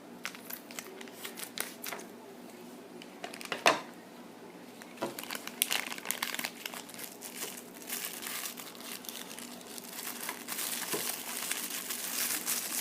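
A K'NEX Mario Kart Wii figure package being torn open by hand: the wrapper crinkling and tearing, with sparse crackles at first, one sharp snap about four seconds in, then denser, steadier crinkling from about eight seconds on.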